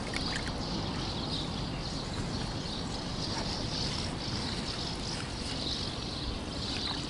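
Steady outdoor ambience: a low, even rumble with a continuous high-pitched buzzing chorus of insects over it.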